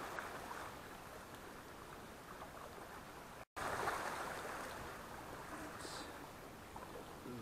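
Small sea waves washing and sloshing against breakwater rocks, a rushing wash that swells and fades. It cuts out for an instant about three and a half seconds in, then surges again.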